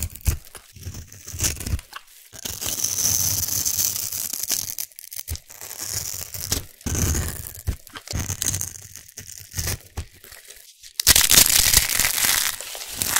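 A knife carving a bar of soap scored into small cubes, the pieces scraping and crackling off in short, irregular strokes. About eleven seconds in, a soap rose is crushed in the hand: a louder, dense crunching.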